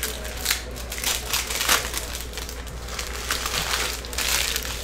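Panini Legacy football cards being sorted by hand and dropped onto piles: an irregular run of papery rustles and flicks as the cards slide over one another, the sharpest about half a second and about a second and a half in.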